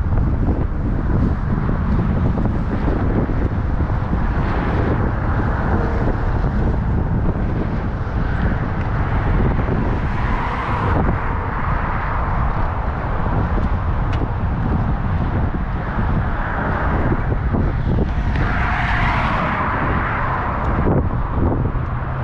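Wind buffeting the microphone over a steady rush of freeway traffic, with two louder swells of passing vehicles, one midway and one near the end.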